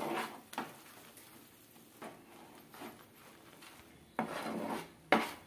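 Spoon scraping and knocking against a cooking pan while stirring thick jaggery syrup mixed with rice flour and ghee: several separate short scrapes, the longest about four seconds in.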